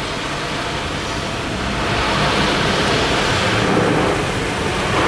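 Water spraying onto a car body as it is washed: a steady rushing hiss that grows louder about two seconds in.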